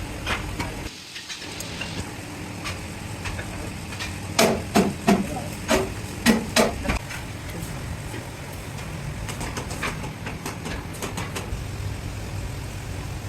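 Metal workshop noise: a steady low machinery hum, with a quick run of about eight sharp knocks between four and seven seconds in and scattered lighter clicks.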